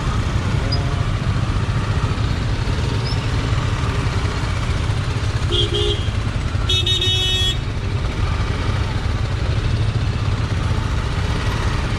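Single-cylinder engine of a BMW G310R motorcycle running at low revs, a steady low rumble. Two vehicle horns from nearby traffic sound over it: a short honk about five and a half seconds in, then a longer one just under a second later.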